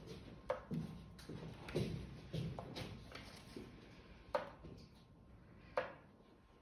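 Quiet room with soft low thuds in the first few seconds and three sharp knocks, about half a second, four and a half and six seconds in.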